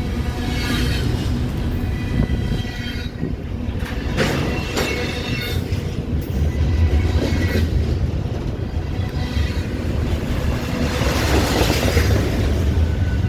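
CN Z121 intermodal freight train rolling past with a steady low rumble of wheels on rail. Its wheels squeal at times, and there are several short clanks from the cars.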